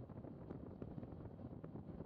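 Wind rushing over the microphone on a moving motorcycle: a steady low rumbling noise with a few faint ticks and no clear engine note.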